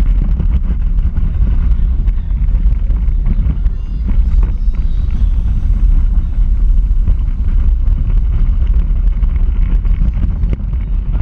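Onboard sound of a small electric Power Racing Series car driving at speed: a steady low rumble of body and wheel vibration with many small rattles, mixed with wind buffeting the camera's microphone.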